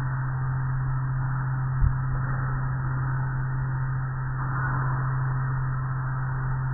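Automatic car wash machinery running, heard from inside the car: a steady low hum with a hiss of spray over it, and one short thump about two seconds in.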